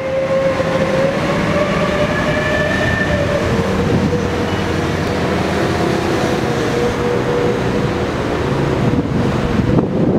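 Train running past at speed, a steady rumble of wheels on rail with a whine that drops slightly in pitch about three seconds in.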